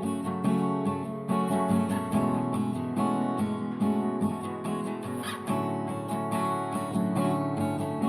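Background music: strummed acoustic guitar with steady sustained notes.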